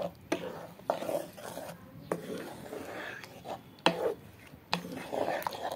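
A spatula stirring and scraping thick chutney around a nonstick pan, with several sharp knocks of the spatula against the pan.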